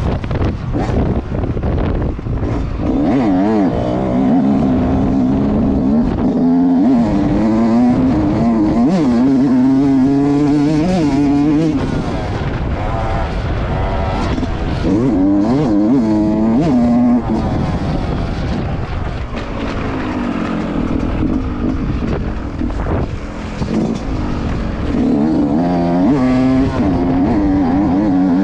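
Yamaha YZ125's two-stroke single-cylinder engine being ridden hard, revving up and down again and again as it is worked through the gears. It eases off the throttle in a few short lulls in the second half.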